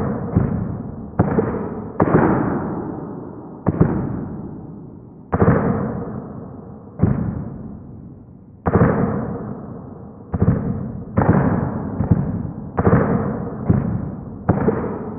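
Music made of heavy struck notes at uneven intervals, each ringing out and fading over one to two seconds. The hits come faster in the last few seconds.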